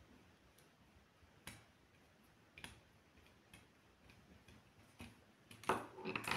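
Light, sparse clicks of a small screwdriver turning a tiny screw in a mobile phone's plastic housing, about one a second, then a louder cluster of clicks and knocks near the end as the parts are handled.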